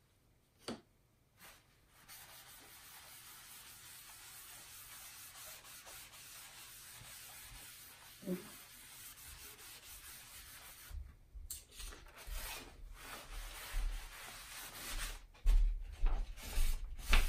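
A paper towel rubbing over a sheet of Tyvek, a steady scratchy hiss, after a single tap near the start. From about eleven seconds in come sharper irregular rustles and bumps as the Tyvek sheet is lifted and handled and the towel wipes the cutting mat beneath it. These are loudest near the end.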